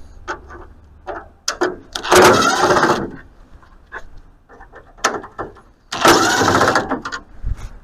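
Power driver running in two bursts of about a second each, backing screws out of a plastic grille, with small clicks and taps between the bursts.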